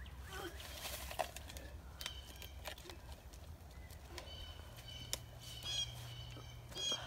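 A bird calling in short repeated chirps from about four seconds in. Under it are a few sharp knocks and scrapes of shoes and hands on tree bark as someone climbs the trunk.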